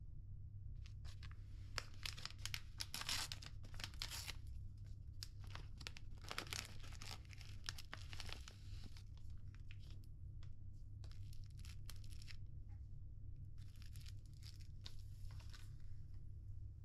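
A paper toiletry sachet crinkling and being torn open by hand, then rustling as its contents are pulled out, over a steady low hum.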